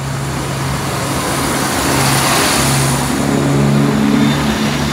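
East Midlands Railway Class 170 Turbostar diesel multiple unit passing close by at low speed: its underfloor diesel engines drone, with the engine note stepping higher about halfway through, over the hiss of wheels on the rails that swells as the coaches go by.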